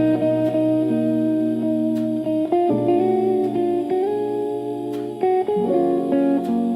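Music led by a guitar, playing held notes that slide between pitches.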